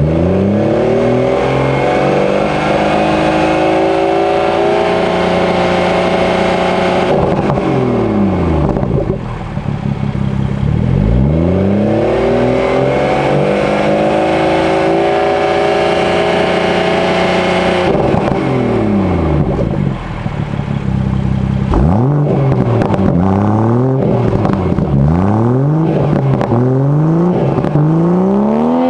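BMW M140i's turbocharged 3.0-litre inline-six exhaust, with an HJS 300-cell downpipe, Akrapovič slip-on and petrol particulate filter, heard at the tailpipe during a stationary noise measurement in Comfort mode. The engine is run up from idle and held steady at 3750 rpm twice, dropping back to idle after each hold. In the last several seconds it gives a rapid series of quick throttle blips.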